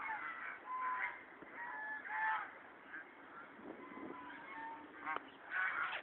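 Waterfowl calling: a string of short honking calls from several birds, some overlapping, with the loudest near the middle and near the end.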